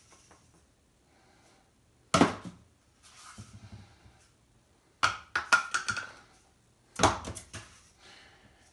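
Cardboard toilet paper tubes being tossed at a plastic wastebasket, landing with sharp knocks: three hits about two, five and seven seconds in. The middle hit is followed by a quick rattle of small bounces.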